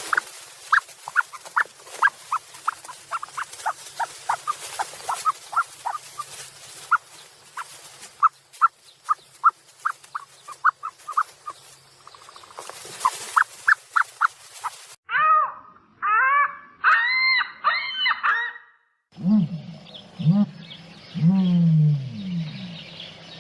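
Animal calls in three spliced recordings: first a long series of short high chirps, about two to three a second; then a few arched calls that rise and fall; then lower calls that fall in pitch.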